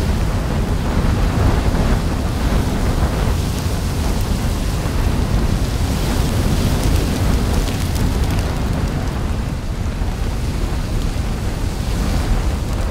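Lava fountains along an erupting volcanic fissure: a steady deep rumble with faint crackles from the spattering lava.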